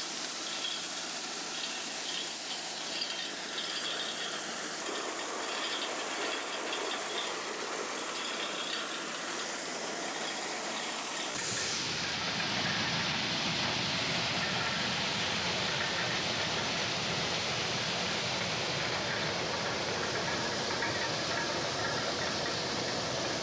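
Corn harvesting machine at work: a steady, even rushing hiss. About halfway through it changes suddenly to a deeper, fuller rush.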